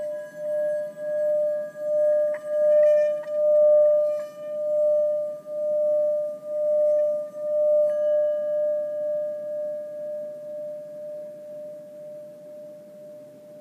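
Metal singing bowl rubbed around its rim with a wooden mallet, one sustained ringing tone that swells and pulses about once a second with each circuit, with a few light clicks of the mallet on the rim. About eight seconds in the mallet is lifted and the bowl rings on, slowly fading.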